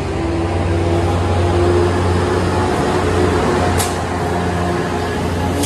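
Tri-Rail diesel-electric commuter train passing close by, first its double-deck coaches and then its locomotive: a steady low engine drone over loud rail noise. There is one brief sharp hiss about four seconds in.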